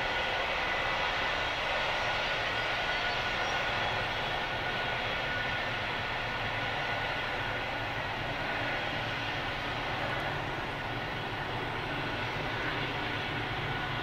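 Diesel-electric freight locomotives working hard up the bank out of sight, a steady engine drone that slowly fades.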